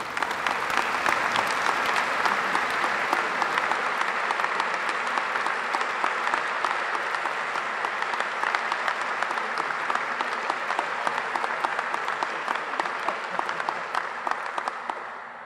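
Audience applauding: many hands clapping steadily, fading out near the end.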